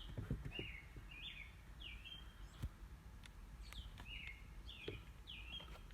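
A bird chirping faintly over and over, short falling notes that come in little runs of two or three, with a few soft clicks between them.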